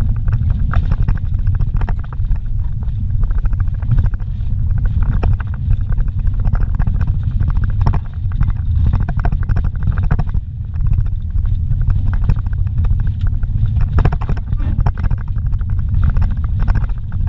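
Vehicle driving over a rough dirt road, heard from inside the cab: a steady low rumble with constant irregular rattles and knocks as it bounces over the ruts and gravel.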